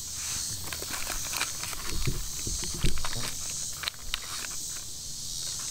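Steady high-pitched chorus of insects, with a few dull low bumps and faint clicks, the loudest bumps about two and three seconds in.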